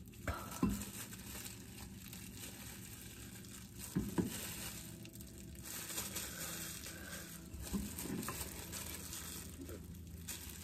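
Crinkling and crushing as a block of chocolate is broken up by hand, with a few sharper knocks a few seconds apart.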